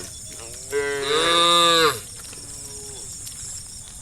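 Cow mooing: one loud, drawn-out moo lasting about a second, starting near the first second, followed by a fainter, lower call.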